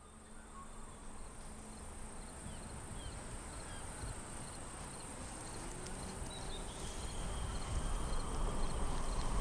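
Outdoor insect ambience fading in and growing louder: a steady high buzz of insects, with small chirps repeating about twice a second over a low rumble.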